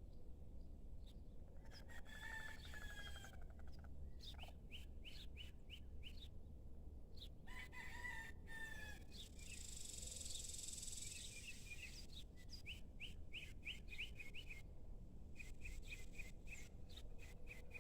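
A rooster crowing in the distance, a long call about eight seconds in, with small birds chirping in quick series later on.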